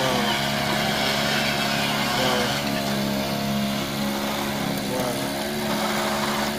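Homemade crawler mini excavator running, its motor giving a steady, even hum while the boom is raised.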